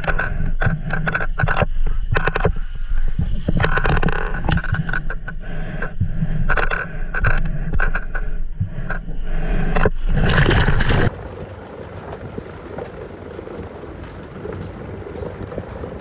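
Ride down a water slide: a run of scraping and knocking from the body and feet on the slide with water running, ending in a loud splash into the sea about ten seconds in. After that comes a quieter, steady rushing noise.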